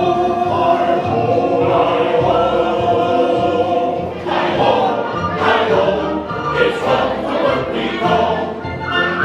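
Choral music: a choir singing long held notes over an orchestral accompaniment.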